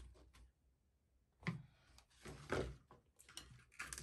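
Plastic recoil starter housing of a two-stroke hedge cutter being handled on a workbench: scattered knocks and light clicks, with two louder knocks about a second and a half and two and a half seconds in, and a run of small clicks near the end as a screwdriver is worked into its centre.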